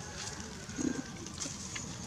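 A single short, low animal call about a second in, over faint rustling and small ticks in dry leaf litter.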